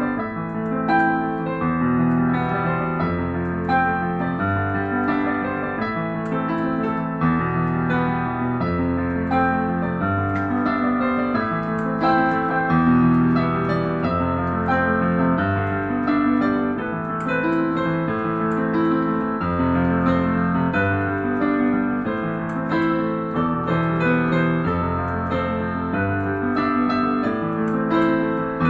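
Piano music: a steady run of notes over sustained low chords.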